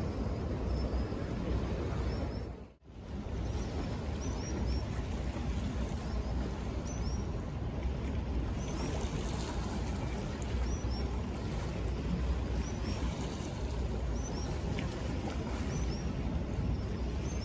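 Steady rush of strong wind buffeting the microphone over water and surf. Faint high chirps come in pairs every second or two. The sound cuts out briefly about three seconds in.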